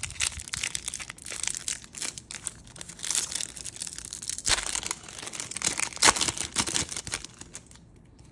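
A foil-and-plastic trading-card pack wrapper being torn open and crinkled by hand, irregular crackling with the loudest rips about four and a half and six seconds in.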